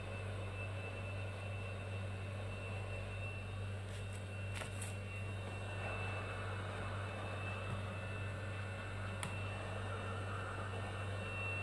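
Handheld hot air rework gun running steadily, blowing with a low hum and a faint high whine, as it heats the tablet's front glass to soften the screen adhesive. A few faint ticks come partway through.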